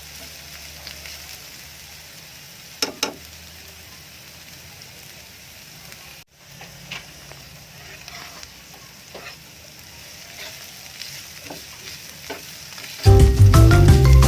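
Chicken frying and sizzling in a pan while it is stirred, with a few sharp knocks of the utensil against the pan. Loud music comes in about a second before the end.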